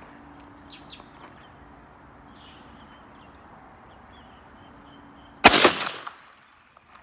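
A single shot from a 12-gauge Browning A5 semi-automatic shotgun with a ported extended-range Patternmaster choke tube, about five and a half seconds in, followed by a brief echo that dies away within about half a second.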